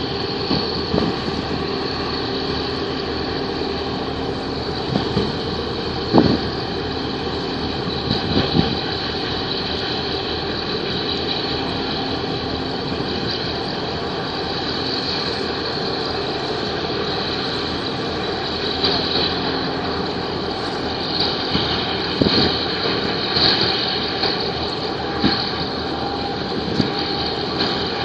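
A boat's diesel engine running steadily, a constant drone with fixed steady tones over it, broken by occasional short thumps.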